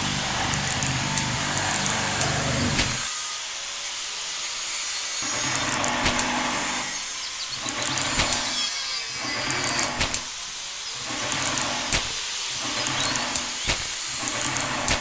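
A small electric motor in a miniature DIY construction machine runs in short spurts of one to three seconds, stopping and starting several times. Under it is a steady gritty scraping hiss with scattered sharp clicks.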